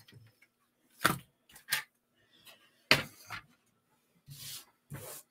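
Cardstock being handled and set down on a craft mat: a handful of light taps and clicks spread through, with a short soft paper rustle near the end.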